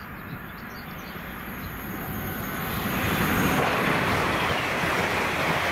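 LNER Class 801 Azuma electric multiple unit approaching at speed and passing close by. A rushing noise builds over the first three seconds, then holds steady and loud as the carriages go past.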